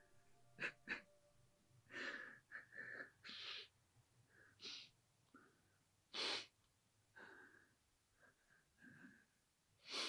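A man crying quietly: a string of short, uneven sniffs and gasping breaths.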